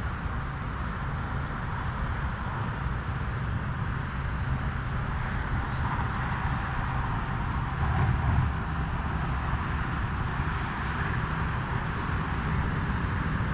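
Steady outdoor background noise with a low rumble, swelling slightly about two-thirds of the way through.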